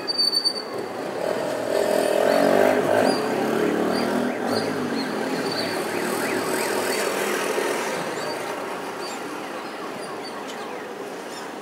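City traffic heard from above the street: a motor vehicle passes, its engine noise swelling over the first couple of seconds and fading away by about eight seconds in. A few short, high chirps sound over it.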